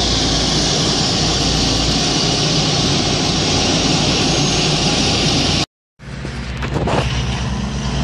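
Diesel engine of a Vögele Super 1800-2 asphalt paver running with a steady rumble and hiss. It cuts off abruptly about five and a half seconds in, and after a brief silence a ride-on tandem road roller's engine hums steadily.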